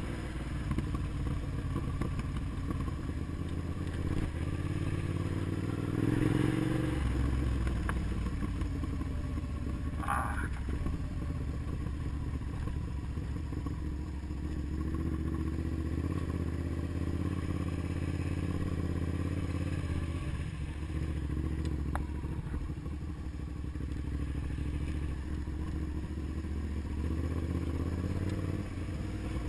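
Motorcycle engine running steadily while under way, briefly revving up about six to seven seconds in.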